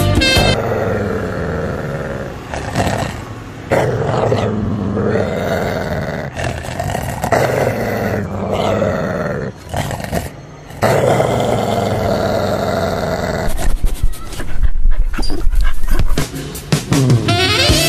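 A dog growling in long drawn-out stretches, over background music.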